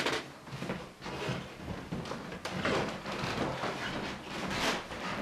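Footsteps and clothes rustling as people walk through a house, with a few irregular light knocks.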